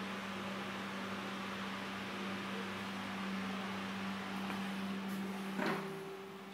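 Steady low electrical hum with an even rushing noise, like a small motor running. A single sharp click comes about five and a half seconds in, where the hum stops, and the rushing noise then fades.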